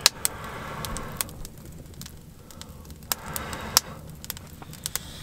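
Small wood fire crackling with sharp, irregular pops inside a portable camp wood stove with its door open, the fire just being got going.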